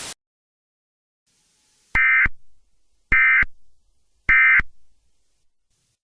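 Emergency Alert System end-of-message signal: three short bursts of warbling SAME data tones, each about a third of a second long and about a second apart.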